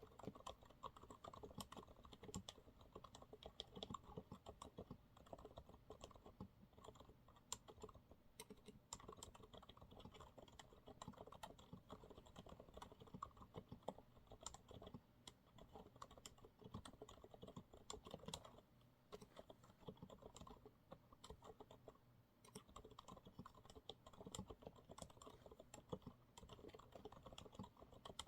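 Steady, fast typing on a Monsgeek MG108W mechanical keyboard with TTC silent brown switches: soft, dampened keystroke clicks in an irregular flurry, with a short pause in the middle.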